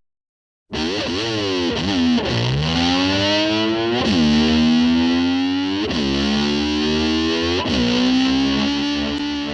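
Distorted electric guitar sliding in pitch, sweeping down and back up several times, then holding one steady note near the end. It starts after a brief dropout.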